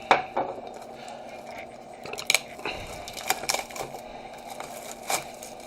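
A knife slitting and tearing the plastic wrap off a cardboard trading-card box: irregular sharp cracks and crinkles of plastic and cardboard, a handful of them spread across a few seconds.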